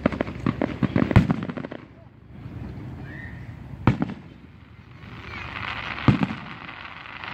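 Aerial fireworks shells bursting. A quick run of crackling pops comes first, then two single loud bangs about two seconds apart, the second one followed by a spreading crackle.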